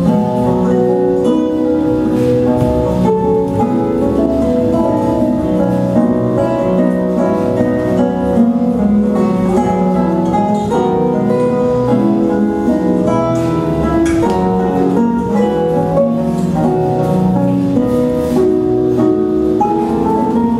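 Instrumental music running without a break, made of many quick, short notes.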